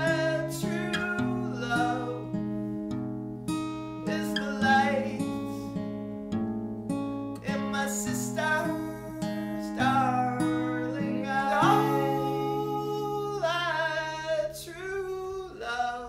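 Music: a song with guitar accompaniment and a singing voice.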